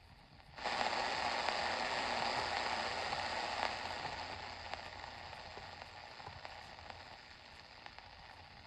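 Static hiss with scattered crackles from a Philips D1835 radio's speaker while it is tuned between stations. It comes in suddenly about half a second in and slowly fades over the last few seconds.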